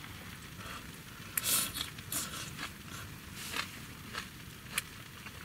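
A person eating from a bowl with chopsticks: a few short scrapes, slurps and rustles, with a single sharp click near the end.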